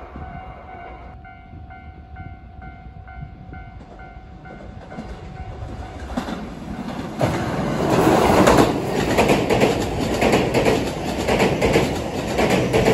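A train approaches and passes close by, growing loud about seven seconds in, its wheels knocking rhythmically over the rail joints. Before it arrives, a pulsing two-pitch beep repeats two or three times a second for a few seconds, over a steady tone.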